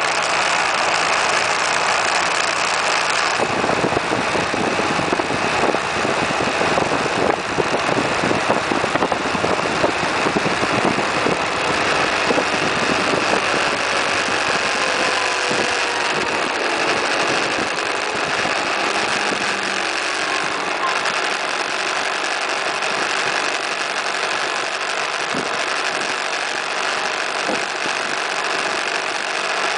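Suzuki Burgman 650 maxi-scooter under way: its engine running steadily beneath loud wind and road noise. A deeper rumble joins about three seconds in and fades after about twenty seconds.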